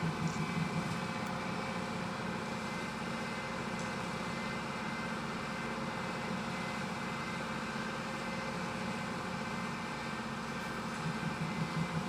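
Steady drone of industrial machinery on a plywood production line, with a few faint steady tones and no distinct knocks or impacts.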